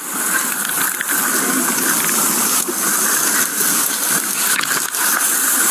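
Steady, loud rushing hiss with a few scattered clicks and knocks.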